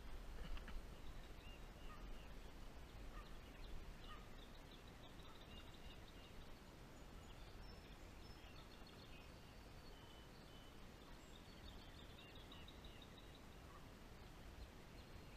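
Near silence outdoors, with faint high bird chirps and short trills scattered throughout, most of them in the second half.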